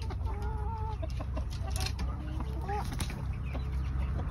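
Chickens clucking at a feeder, with one drawn-out wavering call about half a second in and a couple of short calls near three seconds. Scattered light taps of beaks pecking at the feed.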